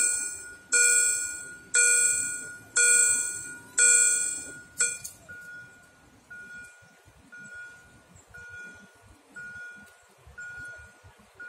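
Railway level crossing warning bell striking about once a second, each strike ringing out, while the barriers lower. About five seconds in it stops, and a fainter short beep repeats about once a second.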